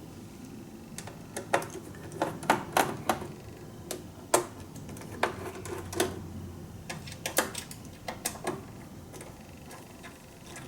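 Irregular small clicks and taps of a screwdriver loosening the screws of a guitar multi-effects unit's casing, so that a stubborn screw can be fitted.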